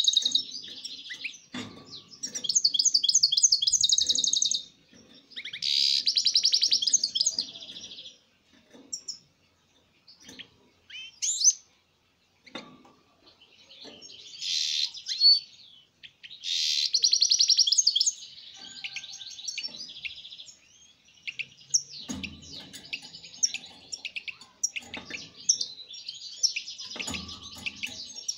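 European goldfinch singing: repeated bursts of rapid twittering trills and chirps, each a second or more long, with short pauses between. A few soft low thumps come through, near the start and toward the end.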